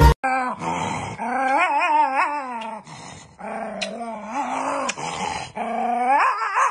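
A dog vocalizing in a series of long, drawn-out calls whose pitch wavers up and down, about five in a row with short gaps between them.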